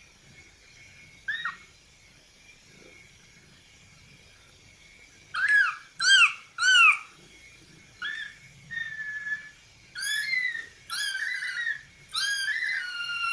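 Kitten meowing in high-pitched calls during rough play: one short meow, then from about five seconds in a run of about eight loud meows, the last ones drawn out longer.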